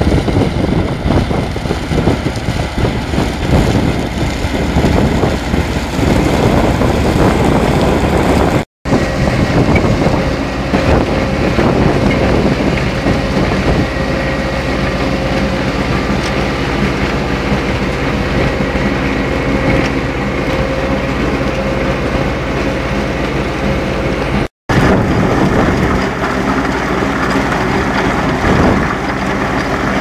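Tractor engine running steadily under load together with the clatter of a trailed potato harvester's web conveyors carrying potatoes and soil. The sound cuts out for an instant twice.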